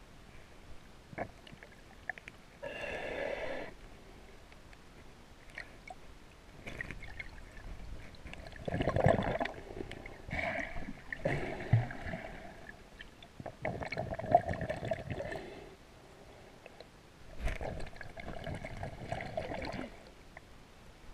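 Muffled underwater sound of a snorkeler breathing hard through a snorkel, in several irregular bouts with gurgling water.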